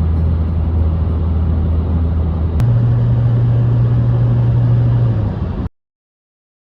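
Background music dominated by heavy, sustained bass notes that step up in pitch partway through, then cut off abruptly near the end.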